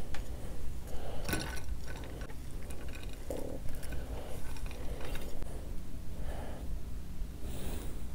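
Close-miked eating sounds: fingers and a spoon handling biryani rice and a boiled egg, with scattered small wet clicks and smacks, the sharpest about a second in, over a low steady hum.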